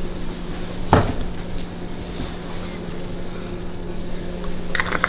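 A steady low hum runs throughout. About a second in there is a single sharp knock, and near the end come a few quick rattles as seasoning is shaken from a shaker bottle onto the plucked crow.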